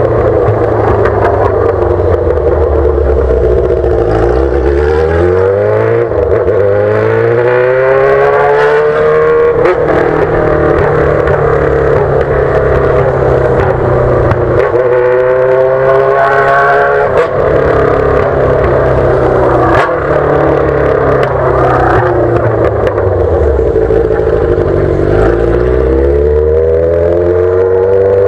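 Yamaha XJ6's inline-four engine through a straight-pipe exhaust with no muffler, loud, its pitch climbing several times as it is revved up under acceleration and dropping back in between.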